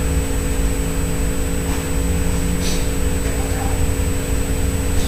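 Steady low rumble with a constant electrical hum: the background noise of a lecture room, with a couple of faint ticks.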